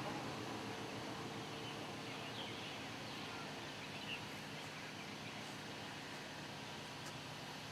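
Steady outdoor background noise with a few faint bird chirps about two to four seconds in.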